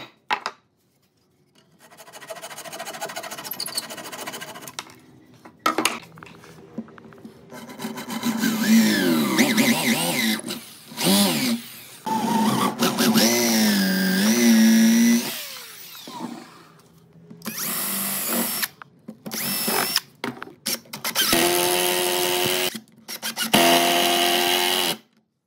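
Electric drill running in several separate bursts, its motor whine sweeping up and down in pitch during the longest run near the middle, steadier in the shorter runs near the end.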